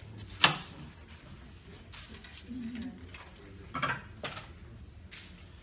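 Handling of aluminium bonsai wire at a bonsai pot: one sharp click about half a second in, then a few lighter clicks and knocks near the middle.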